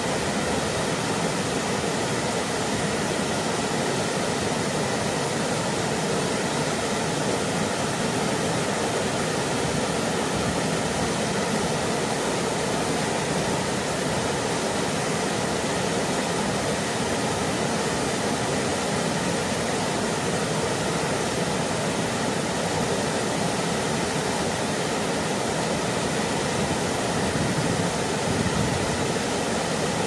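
Low waterfall pouring into its plunge pool: a steady, unbroken rush of falling water.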